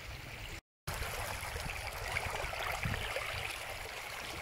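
Muddy flash-flood water rushing in a shallow sheet over sandy ground, a steady gurgling wash. It breaks off for a moment about half a second in, then comes back a little louder.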